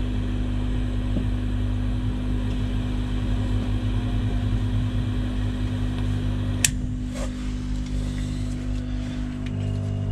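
Electric smoke generator on a smokehouse humming steadily while its wood chips are lit. A single sharp click comes about two-thirds of the way in.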